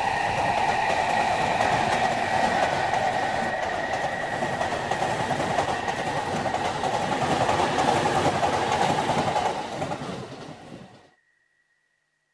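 Electric commuter train running past, the steady noise of its wheels on the rails. It fades out and drops to silence near the end.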